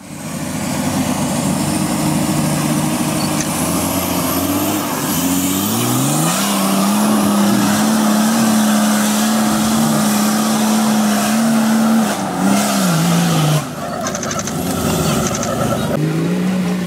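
Off-road 4x4 engines revving hard while driving through deep mud. The pitch climbs and holds high for several seconds, then falls away. After a break, an engine revs up again near the end.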